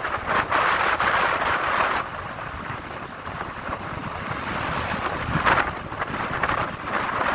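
Wind buffeting the microphone of a phone riding on a moving vehicle, over road and engine noise. An oncoming truck passes with a louder whoosh about five and a half seconds in.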